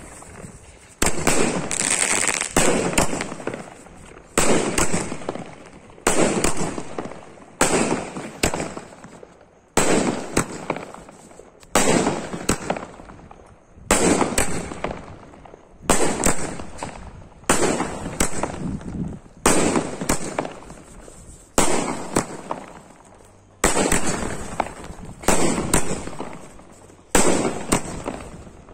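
A 30-shot aerial fireworks cake firing shell after shell, about one every one and a half to two seconds. Each shot is a sharp bang that fades away before the next one.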